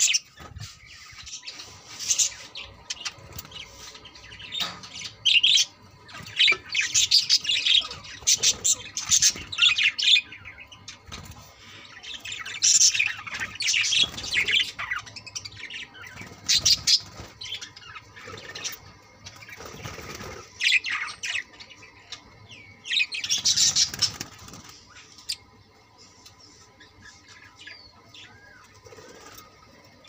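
A flock of budgerigars chirping and chattering in bursts of quick high calls, with wings flapping now and then; the chatter thins out over the last few seconds.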